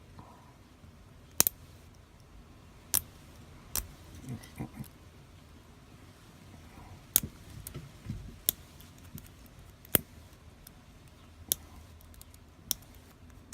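Scattered sharp metallic clicks and taps, about a dozen, as a 5-pin tumbler lock and the tools on it are handled to take the lock apart.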